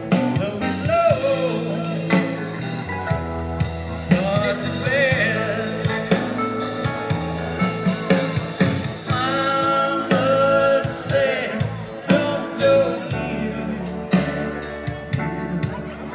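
Live band music with drum kit, electric guitar and keyboard, and a voice singing over it.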